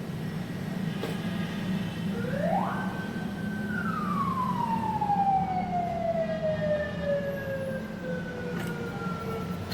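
A siren-like whine climbs steeply a little over two seconds in, holds briefly, then slides slowly down over about six seconds, the way a wind-up siren runs down. A steady low hum runs underneath.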